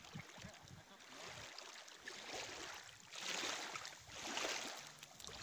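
Small waves washing at the lake's edge, swelling louder about three seconds in and again past four seconds, with faint voices in the background.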